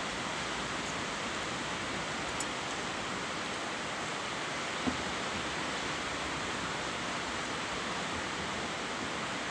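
Steady, even background hiss, with a faint click about five seconds in.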